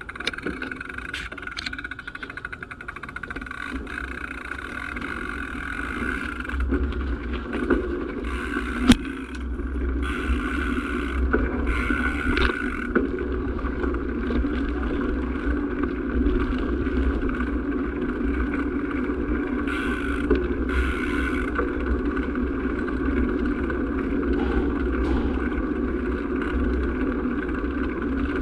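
A vehicle engine running steadily while it moves slowly along, with a sharp click about nine seconds in.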